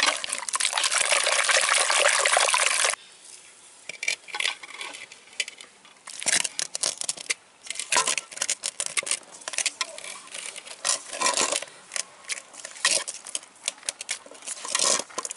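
Shelled paddy-field snails being rubbed with salt and water in a clay pot to strip their slime: a dense wet sloshing and scrubbing that stops abruptly about three seconds in. After that come irregular wet squelches and small clicks as handfuls of snail meat are squeezed and dropped into a steel bowl.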